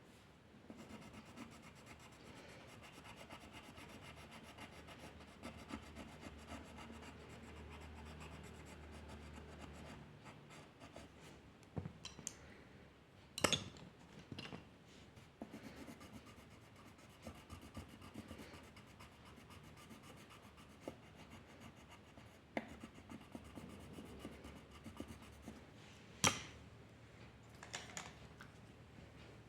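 A drawing tool scratching and rubbing on paper in faint, steady strokes, with a few sharp clicks or taps, the loudest about halfway through and again near the end.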